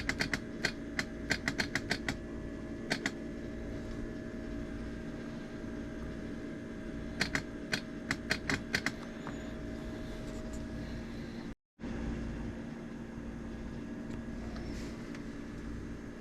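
Runs of quick, sharp clicks, many in the first three seconds and again about seven to nine seconds in, over the steady hum of the bench setup powering the headlamps, which is being pushed by the low and high beams. The hum cuts out completely for a moment about twelve seconds in.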